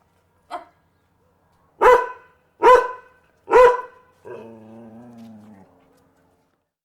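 A dog barking: one lighter bark, then three loud barks in quick succession, followed by a drawn-out low growl lasting about a second and a half.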